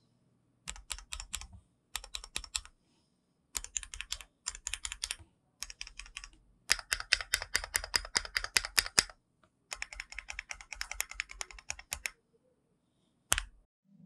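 Typing on a Keychron Q1 full-aluminium mechanical keyboard with SA-profile ABS keycaps: quick runs of keystroke clacks, each a second or two long, broken by short pauses, then one louder single keystroke near the end. The typing sounds soft and clean.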